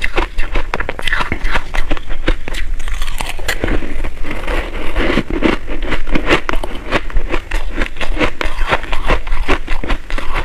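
Close-miked crunching and chewing of crushed purple ice, a dense run of sharp crackling crunches. Near the end a metal spoon scrapes and digs into the ice in its plastic box.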